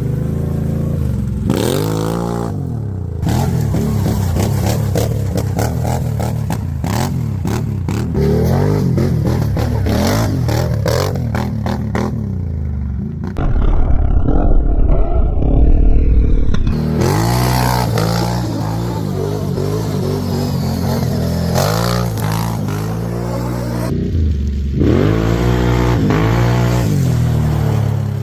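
Can-Am Renegade 800R ATV's V-twin engine revving up and down repeatedly while riding over rough ground, with rapid clattering knocks in the first half. About halfway through, a loud low rumble drowns out the higher sounds for roughly three seconds.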